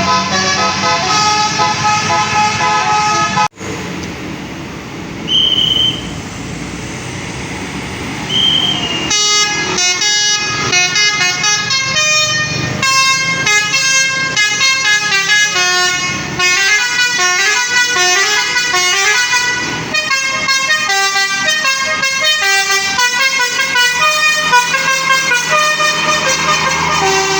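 Bus 'telolet' musical horn (Basuri type) playing a quick run of stepping notes like a tune. It breaks off a few seconds in, leaving engine and road noise with two short high beeps. About nine seconds in the horn melody starts again and plays on continuously.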